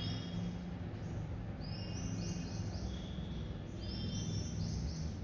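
Birds chirping: short rising chirps in quick runs of three or four, twice, with some thin steady whistles between them, over a low steady hum.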